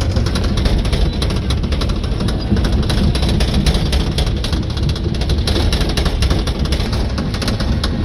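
Crawler bulldozer heard from inside its cab while driving: the diesel engine runs loud and steady, with a fast, dense clatter from the steel tracks running through it.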